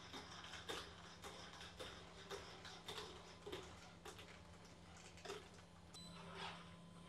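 LimX Oli humanoid robot's feet striking the floor as it walks, faint knocks about two a second, over a steady low hum. The steps stop about a second before the end.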